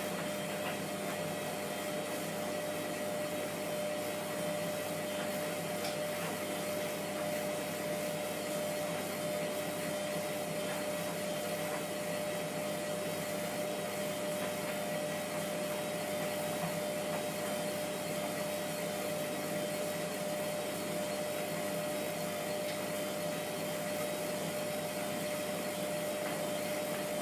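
Hotpoint Aquarius WMF720P washing machine's motor turning the drum steadily at distribution speed ahead of a spin, a steady whine over an even hum, with excess suds still in the drum.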